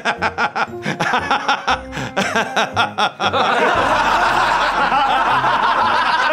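Several men laughing together over background music. The laughter starts as short ha-ha pulses and becomes fuller and steadier about three and a half seconds in.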